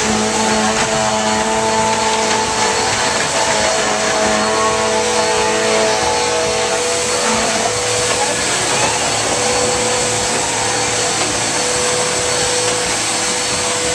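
Vacuum cleaner running steadily: an even, loud motor noise with a steady whine on top.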